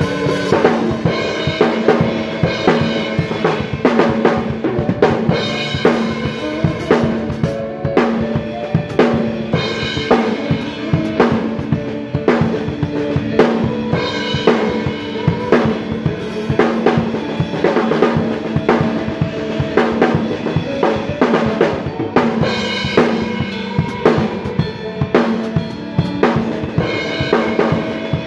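A drum kit played up close, a Pearl wooden-shell snare and bass drum keeping a steady beat with cymbals, over held chords from other instruments in a live band.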